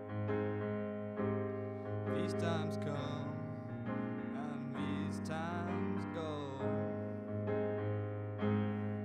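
Live performance of a slow song on a digital stage piano: repeated held chords, with a male voice singing over them from about two seconds in until about six and a half seconds in, and piano alone before and after.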